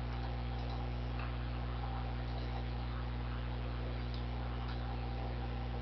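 Steady electrical hum made of several low tones, over an even hiss, with a few faint clicks.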